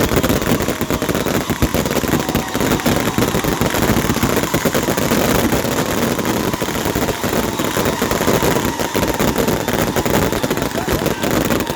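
Fireworks finale barrage: a dense, unbroken run of rapid bangs and crackling from many shots going off close together.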